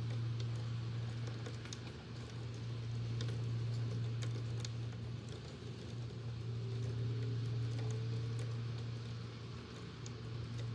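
Rain pattering with scattered sharp ticks of drops striking, over the steady low hum of an electric fan running.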